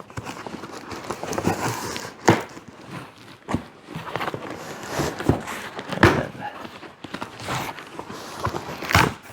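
Cardboard box being handled and opened: rustling and scraping, with several sharp knocks.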